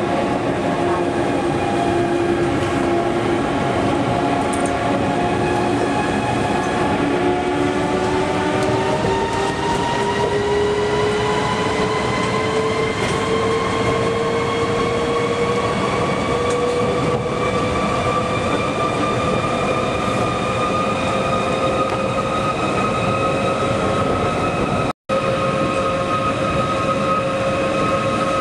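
Osaka Monorail car heard from inside while running: a steady running noise under a motor whine that rises slowly in pitch as the train gathers speed, then holds steady. The sound cuts out for a moment near the end.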